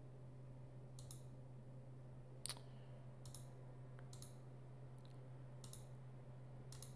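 Computer mouse clicking several times at irregular intervals, some clicks in quick pairs, over a faint steady low hum.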